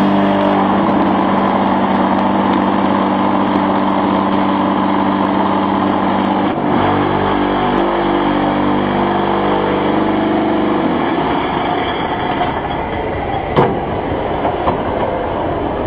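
Concrete block making machine running with a steady mechanical hum and rattle, the sound of its vibrator compacting the mould; the hum stops about eleven seconds in while a rougher machine noise goes on. One sharp metal knock near the end.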